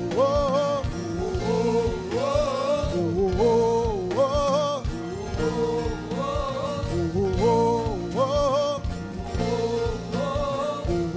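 Live gospel praise music: a melodic line sung in phrases of a few held notes over a band accompaniment.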